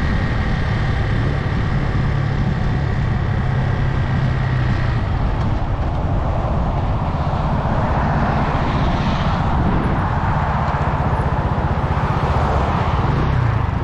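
Motorcycle engine running low and steady, with a faint whine that stops about five seconds in. A rushing noise, wind and traffic, builds in the second half.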